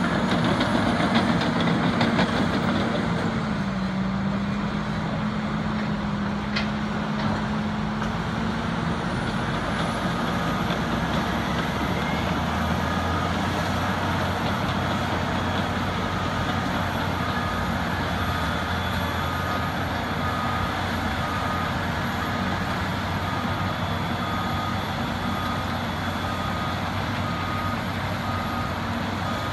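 Diesel engines of a Caterpillar 621B wheel tractor-scraper and a crawler dozer running steadily under load as the dozer push-loads the scraper. A backup alarm beeps about once a second from about ten seconds in.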